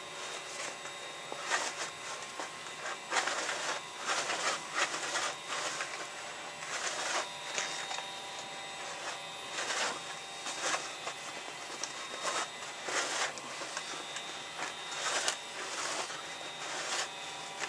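Tanned coyote hide being pulled back and forth over a hide-breaking tool, rasping and scraping in irregular strokes about once a second. This is the hide being broken: its dried fibres stretched apart so the skin softens and no hard spots remain.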